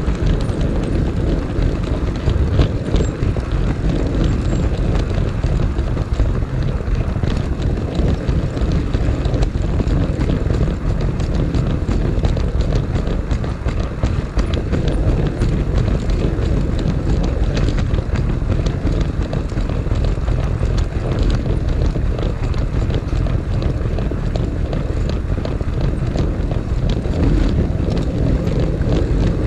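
O gauge model train rolling along its garden-railway track, heard from a camera riding on the train: a steady rumble of wheels on rail with many fine ticks.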